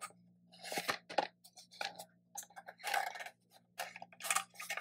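Metal binder clip being handled and clamped onto a thin cord at the edge of a hardboard clipboard. It makes several short bursts of clicking and scraping as fingers work the clip against the board.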